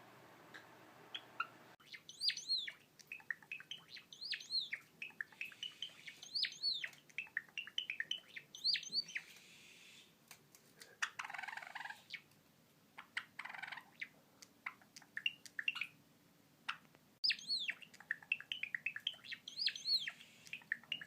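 Male Java sparrow singing: runs of quick clicking chirps, each ending in high, bright, bending whistles, repeated about every two seconds. It is a young bird practising a song copied from another male. The song breaks off midway, with two short noisy sounds in the pause, and starts again near the end.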